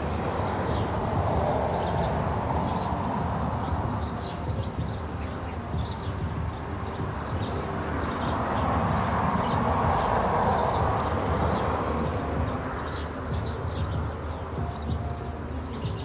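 Nestlings giving short, high begging chirps, repeated irregularly throughout, over a steady rushing noise that swells about two seconds in and again around ten seconds in.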